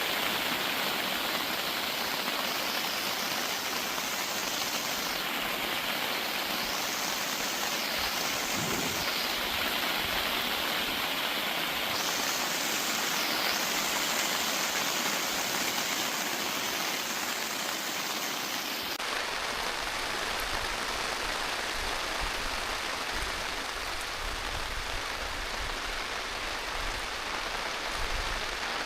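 Steady rain falling. About two-thirds of the way through, the sound shifts abruptly, with more low rumble underneath.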